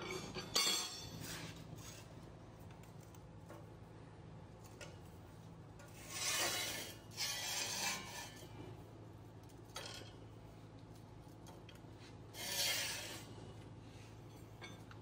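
Sheet-metal parts being handled on a metal fabrication table: a couple of sharp clinks at the start, then pieces scraping and rubbing across the steel surface in three longer stretches, over a steady low hum.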